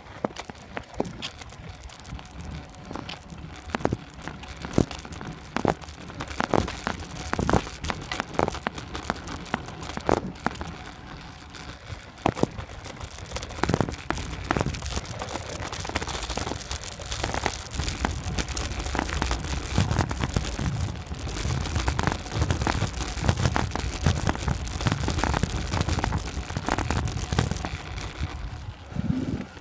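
Camera microphone jostled on a road bike ride: a steady run of crackles, rattles and clicks, with a low rush of wind on the microphone building from about two-thirds through.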